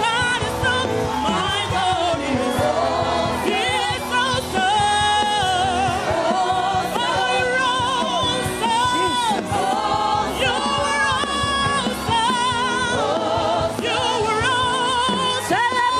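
Gospel music: several voices singing with strong vibrato over an accompaniment, at a steady level throughout.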